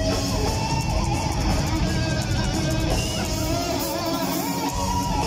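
Heavy metal band playing live: electric guitars carry a bending melodic line over bass and drums.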